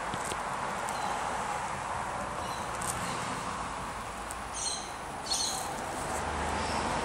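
Steady outdoor background noise with two short, high bird chirps a little past the middle.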